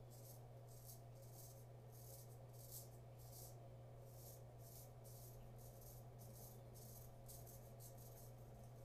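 Custom 7/8 inch straight razor scraping through lather and stubble on a scalp in short, faint strokes, about two a second, over a steady low hum.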